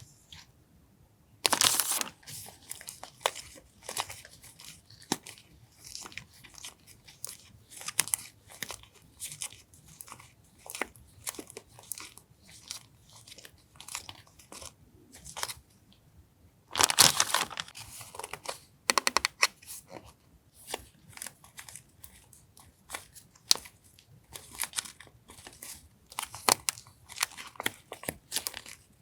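Paper and plastic stationery packaging handled close up: irregular rustling, crinkling and light tearing, with louder stretches of crinkling about two seconds in and again just past halfway.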